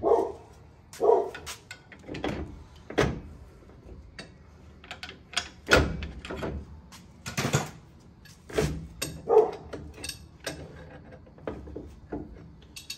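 A large adjustable wrench and other hand tools clanking and knocking against a truck's front strut and suspension parts while the bottom of the strut is worked around to line it up: a dozen or so irregular metallic knocks and clinks.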